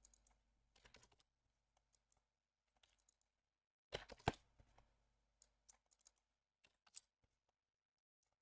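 Faint, scattered clicks of a computer keyboard and mouse, with a short cluster of louder clicks about four seconds in.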